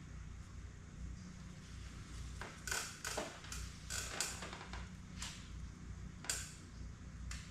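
Scattered sharp metal clicks and clinks of hand tools and parts being handled, bunched in the middle, over a steady low hum.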